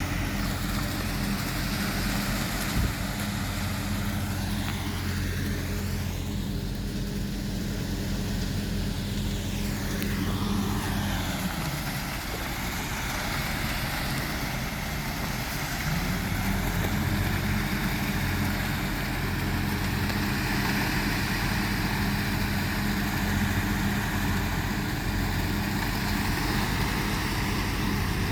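A heavy vehicle's engine running steadily; its pitch drops about eleven seconds in and comes back up about five seconds later.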